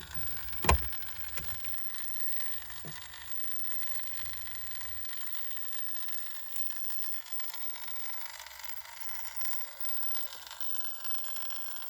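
ParkSafe 24 V 3000 W power inverter with its case off, buzzing steadily with a whine of many pitched tones over a low hum while powering a 150-watt lamp. A single knock sounds about a second in. The owner wonders whether the buzz is normal for a nine-year-old inverter or a sign it is running rough.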